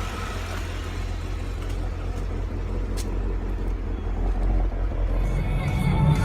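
Supercharged car engine running with a steady low rumble, a single sharp click about three seconds in, and the engine growing louder in the last second or so.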